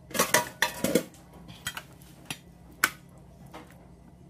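A kitchen knife knocking and clicking against a cutting board and dish while scoring deboned chicken thigh meat to sever the tendons: a quick cluster of sharp knocks in the first second, then a few single clicks.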